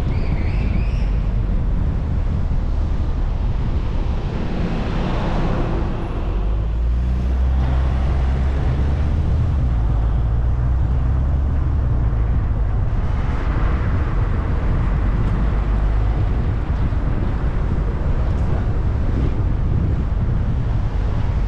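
Car driving through city traffic: a steady low road-and-engine rumble. The noise swells twice, about five and about thirteen seconds in.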